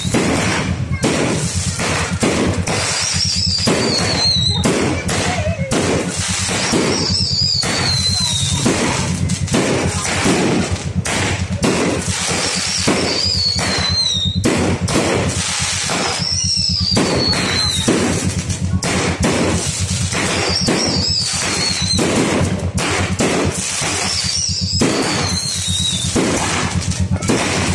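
Fireworks and firecrackers going off in rapid, continuous succession, a dense crackle of bangs. About every four seconds a high, wavering whistle falls in pitch.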